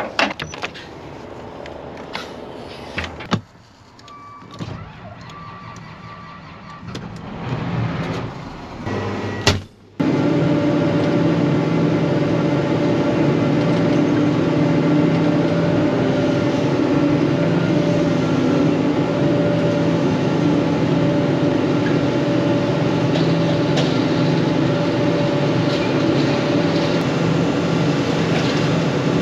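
Scattered clicks, knocks and door sounds, then a sharp knock about ten seconds in. After it, a heavy farm machine's diesel engine runs loud and steady, with an unchanging pitch.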